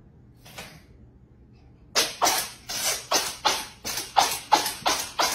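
Tuxedo kitten sneezing again and again in a rapid fit, about three sneezes a second, starting about two seconds in.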